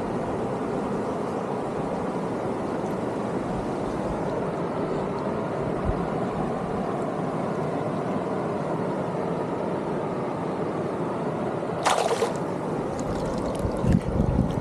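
Small stream's water running steadily, with a short sharp rush of noise about twelve seconds in and a few low thumps near the end.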